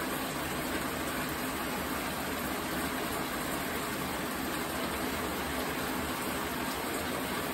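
Steady rushing noise with no breaks or distinct events.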